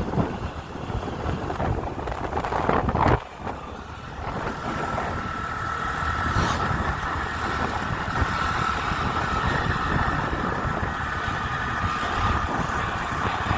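A vehicle on the move, with a steady engine and road rumble and wind noise. A louder rush cuts off about three seconds in, and a steady high whine sets in soon after.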